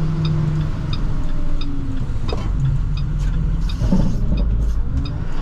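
Plow truck engine running steadily, heard from inside the cab, with a turn signal ticking at an even pace.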